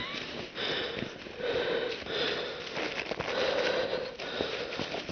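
Heavy breathing through the nose close to the microphone, a soft rushing breath about once a second, with scattered faint ticks between.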